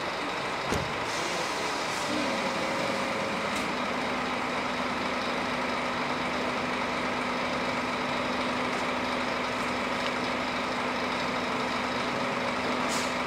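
Scania K360 bus's diesel engine running steadily, with a short thump about a second in and a brief hiss of air near the end.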